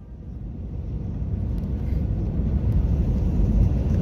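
Airbus A319 cabin noise on approach to landing: a steady low rumble of the engines and airflow heard through the fuselage by the window seat over the wing. It fades in over the first second or two.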